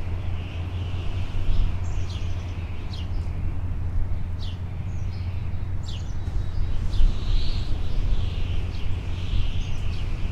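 Birds calling in short, sharply falling chirps every second or so, over a steady low rumble.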